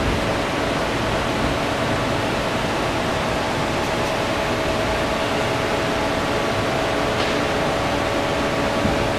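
Steady whirring rush with a faint even hum as a 1986 Suzuki Savage 650 rear wheel rim spins on a spin-test stand.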